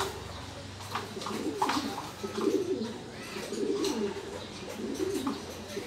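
Racing pigeon cooing, one low rolling coo after another, with a few light taps among them.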